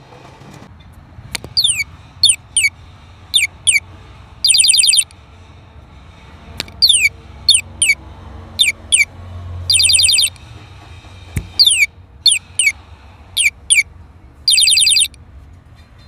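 Electronic bird-call circuit board playing a synthetic birdsong through a small disc speaker. It gives about five quick downward-sweeping chirps, then a half-second warbling trill, and the phrase repeats three times.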